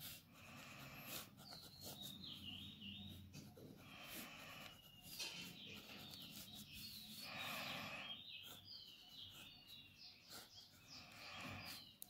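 Faint scratching of a ballpoint pen on notebook paper in short strokes as zigzag lines are drawn, with small birds chirping in the background.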